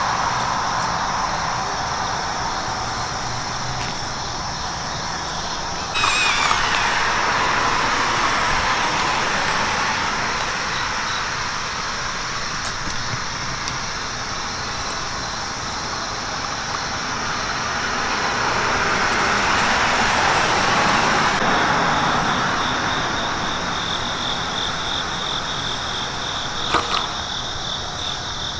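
Redcat electric RC rock crawler driving over rocks, a steady high motor whine coming in about three-quarters of the way through. Behind it, road traffic noise swells and fades, and there is a single sharp knock near the end.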